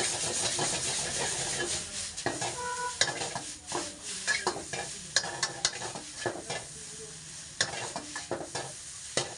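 Stir-fried noodles and vegetables sizzling in a steel wok while a metal wok ladle stirs and tosses them. The ladle scrapes the wok and strikes it in sharp, irregular clangs. The sizzle is steady for about the first two seconds, then the clangs come thick and fast.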